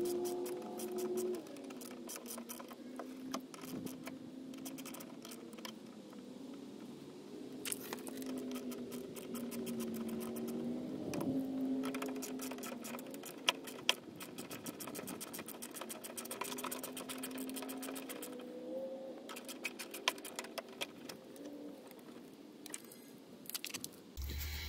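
Quick runs of light clicks and ticks from hand tools as screws are backed out of the plastic fender-well liner at the front bumper cover of a 1996 Chevy Impala SS. A faint low wavering hum runs underneath.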